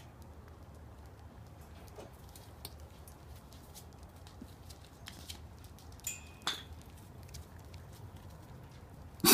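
Puppies moving about, with light pattering and scattered faint clicks, and a brief high squeak about six seconds in. A loud, short dog call starts right at the end.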